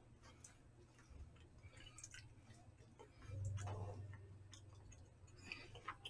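Faint, scattered clicks of chopsticks against plastic takeout food trays, with a brief low sound about three and a half seconds in.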